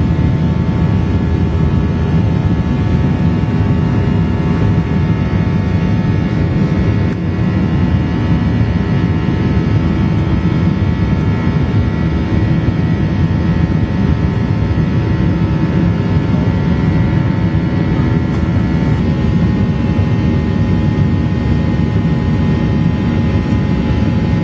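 Cabin noise of a Boeing 737-800 in flight: a steady roar of air and CFM56 engines with a hum of several steady tones. The tones step slightly lower about nineteen seconds in.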